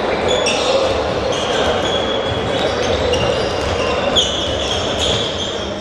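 Handballs bouncing on a sports-hall floor, with many short, high squeaks of sports shoes on the court surface.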